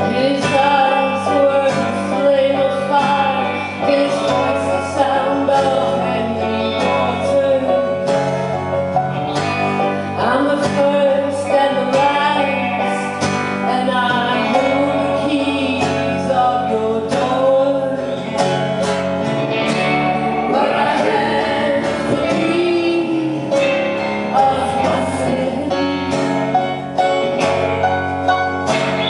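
Live band playing a song: a sung vocal line over guitar, running steadily throughout.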